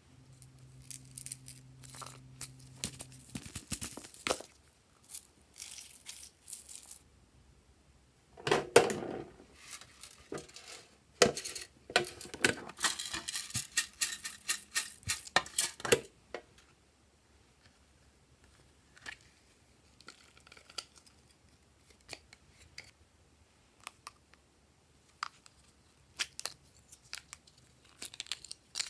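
Plastic sequin confetti poured out of a plastic container onto slime, a dense rattling patter from about eight to sixteen seconds in. Around it, plastic tubs are tapped, handled and clicked open, and a low steady hum runs through the first three seconds.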